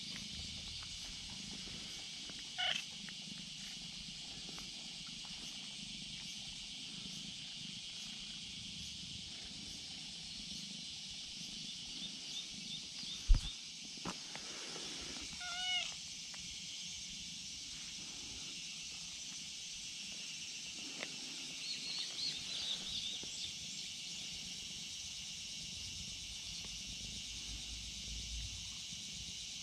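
Brown-tabby-and-white cat meowing twice, a short meow about three seconds in and another around sixteen seconds, while it is being petted. A single sharp knock about thirteen seconds in is the loudest sound. A steady high insect drone runs underneath.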